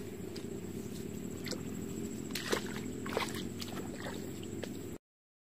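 Wind rumbling on the camera microphone in an open field, with a faint steady high whine and scattered light clicks and rustles. It cuts off abruptly to silence about five seconds in.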